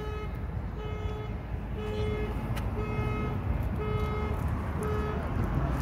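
An alarm beeping in an even rhythm: six half-second beeps, about one a second, over a steady low background rumble.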